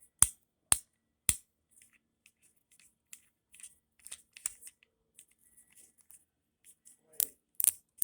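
Plastic fidget toy being clicked by hand: three sharp clicks in the first second and a half, softer scattered clicking after, then louder clicks again near the end.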